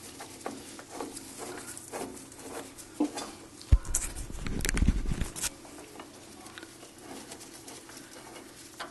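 Scattered clicks, taps and knocks of a hex key and steel parts being handled on a lathe carriage during assembly. A heavy thump comes a little before four seconds in, followed by about a second and a half of low rumble.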